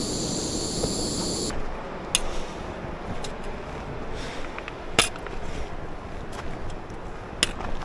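Insects buzzing steadily at a high pitch, cut off suddenly about a second and a half in. Then a quiet outdoor background with a few sharp, irregular clicks or taps, the loudest about five seconds in and again near the end.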